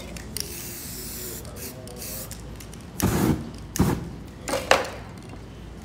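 Aerosol spray paint cans hissing in short bursts. About three seconds in comes a loud rush as the wet spray paint on the board is set alight. A sharp click and another short burst of spray follow.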